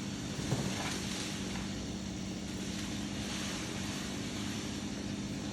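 An engine running steadily at an even pitch, a constant drone with no change in speed.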